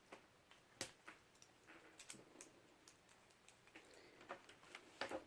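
Faint, irregular clicks and taps of a tool working at a laptop's plastic case, as the plastic keyboard trim strip is prised at. The sharpest clicks come about a second in and near the end.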